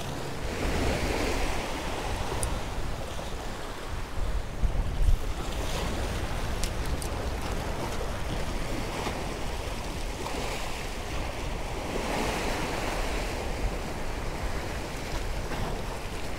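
Ocean surf breaking and washing against the stone blocks of a jetty, surging and easing in repeated swells every few seconds. Wind rumbles on the microphone, strongest around four to five seconds in.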